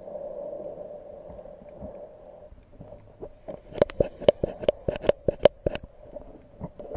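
Muffled underwater sound picked up by a submerged camera, a steady low hum, then a quick run of about a dozen sharp clicks a little past halfway.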